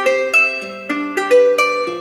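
A phone ringtone playing on the ASUS ROG Phone 3 Strix Edition: a quick, bright melody of plucked notes, several a second.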